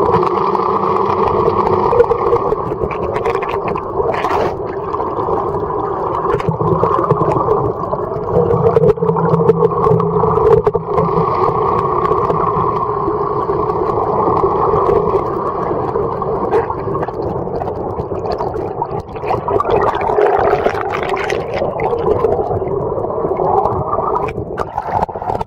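A boat's engine and propeller running steadily, heard underwater and muffled, with a few scattered knocks.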